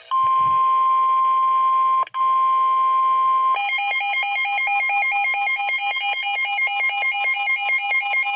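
Emergency Alert System attention tones ahead of a severe thunderstorm warning: a loud steady electronic tone near 1 kHz, cut briefly about two seconds in, gives way about three and a half seconds in to a different pulsing, warbling alert tone that keeps going.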